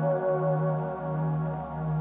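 Soft ambient instrumental background music: sustained steady tones over a low note that pulses at an even beat.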